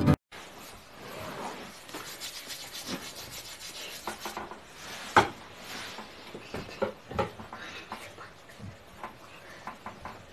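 Soft rubbing and scraping noises with many small scattered clicks and taps, one sharper click about five seconds in.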